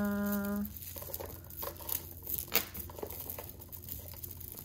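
Costume-jewelry chain necklaces and faux-pearl strands being handled and pulled apart on a cloth: light rustling with scattered small clicks and clinks of metal links, one sharper click about two and a half seconds in.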